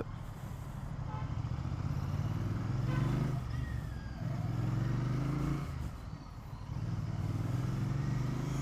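Royal Enfield motorcycle engine heard while riding, its revs climbing and dropping back three times.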